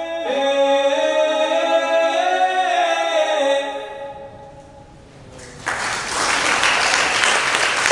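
Recorded choral singing in held, layered chords that fades out over a couple of seconds, then applause breaks out suddenly about two seconds before the end and carries on.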